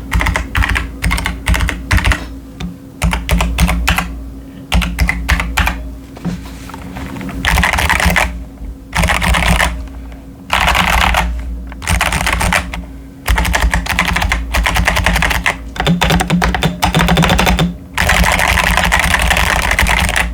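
Typing on a modded CIY Tester 68 mechanical keyboard with stock Akko Jelly Purple tactile switches and Cherry-profile PBT keycaps. Separate keystrokes at first, then from about the middle, about six runs of fast typing, each roughly a second long, with short pauses between.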